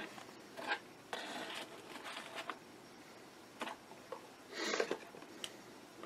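Faint handling sounds of a pocket clip being slid off a flashlight's body: soft scraping rustles and a few light clicks, with a short, brighter scrape near the end.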